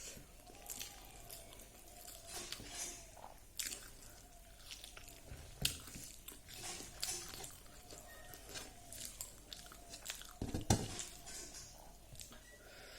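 A person eating rice with fried dried pork, close-up chewing and crunching with many small clicks and mouth noises. A louder dull knock comes about ten seconds in.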